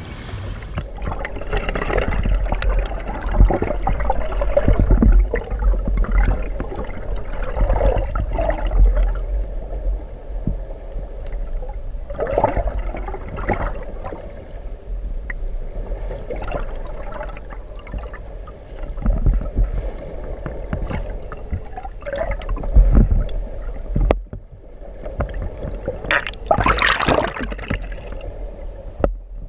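Muffled underwater sound from a submerged camera: water churning and gurgling against it over a low steady rumble, in irregular surges. There is a sharp click a little before the end, then a louder rushing surge.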